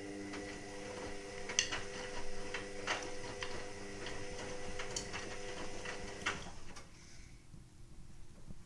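Indesit WIXL143 washing machine clicking irregularly, about two clicks a second, over a low steady hum, with both stopping about six and a half seconds in. This is the faulty clicking of a machine that does not finish its cycle, flashing its door-lock light; the cause is unknown.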